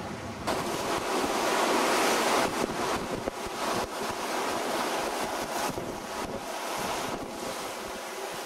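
Sea water rushing and splashing along the hull of a sailing yacht under way through ocean waves, with wind buffeting the microphone. It starts suddenly about half a second in and is loudest around two seconds in.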